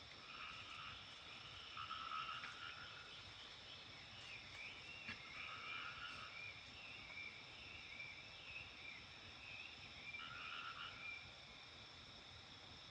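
Frogs croaking in repeated bouts of about a second each, faint, over a steady high-pitched background chorus.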